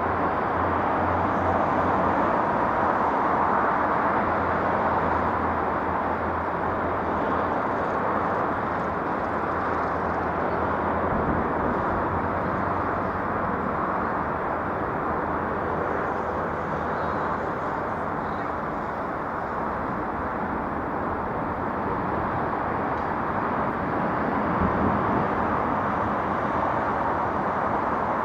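Steady outdoor city background noise with a low, even rumble of distant traffic. There are no fireworks bangs.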